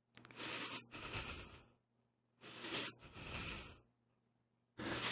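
Quiet, shaky breathing of a distressed young woman close to tears: two in-and-out breaths, then another starting near the end.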